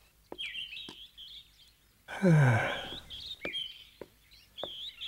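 Animated-soundtrack birdsong, short chirping warbles, with several sharp clicks between them. About two seconds in, the loudest sound: a deep voiced sigh that falls in pitch.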